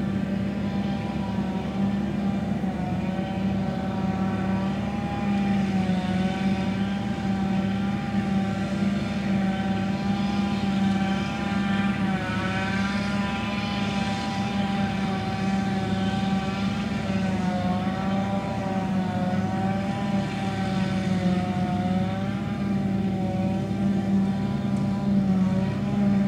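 John Deere self-propelled forage harvester chopping and blowing haylage, running steadily under load alongside a diesel truck: a constant low engine drone with a high whine over it that dips and wavers slightly in pitch.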